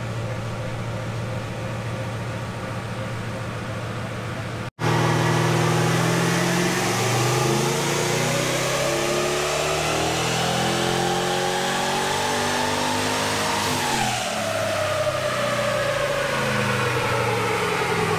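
Twin-turbo LS V8 in a Toyota 80-series Landcruiser running on a chassis dyno: it idles steadily, then after a sudden break about five seconds in it runs a dyno pull. The engine note rises steadily for about nine seconds as it climbs through the revs, then falls away as it comes off the throttle.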